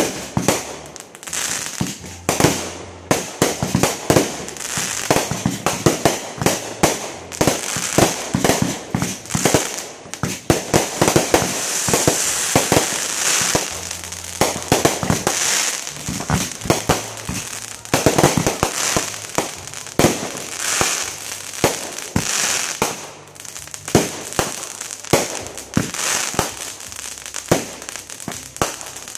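Fireworks display: a rapid, unbroken stream of bangs and pops from aerial shells bursting, over a steady crackling hiss from crackling stars, thickest and loudest in the middle of the stretch.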